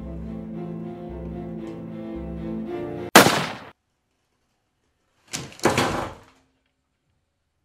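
Bowed string music with a pulsing low beat that stops abruptly about three seconds in, cut off by a loud, short rushing burst. Silence follows, broken by two more short bursts a little over two seconds later.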